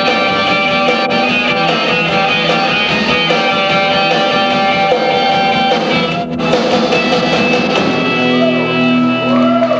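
Live rock band playing: electric guitars over a drum kit. Near the end the band holds long, sustained notes.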